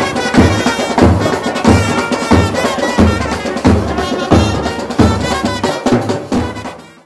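Festive band music: a heavy drum beat about every two-thirds of a second under a reedy wind-instrument melody. It fades out near the end.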